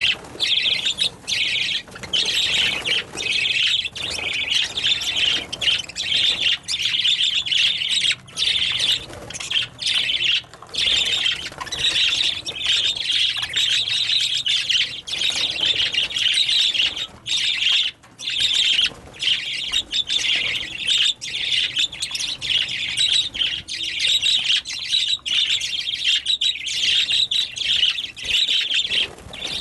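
Budgerigars chattering, with quick chirps and squawks overlapping almost without a break.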